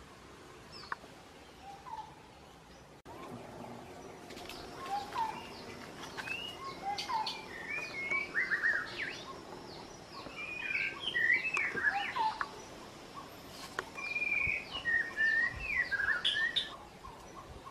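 Wild birds chirping and calling: short whistled chirps and quick up-and-down notes, sparse at first and coming thick and fast from a few seconds in. A faint steady high tone runs behind them.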